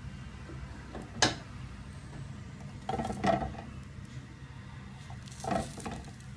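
Pieces of bread set one at a time into a hot, lightly oiled frying pan, three short soft taps about two seconds apart, with a faint sizzle under them.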